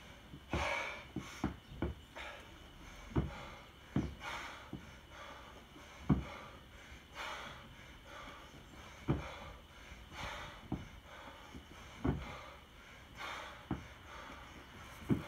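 A man breathing hard with sharp, forceful exhales through a set of 24 kg kettlebell jerks. A dull thud comes about every three seconds as each rep lands, with lighter knocks in between.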